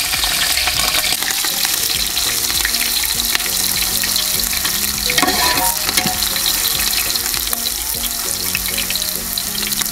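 Chopped green chillies and whole spices sizzling in hot oil in a pot, a steady loud hiss, with the occasional click of stirring.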